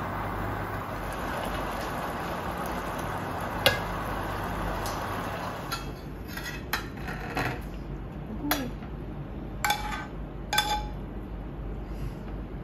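A steady hiss, then a metal spoon scraping and clinking against a ceramic pan and plate as a saucy stir-fry is served out. In the second half come several sharp clinks, two of them with a brief ring.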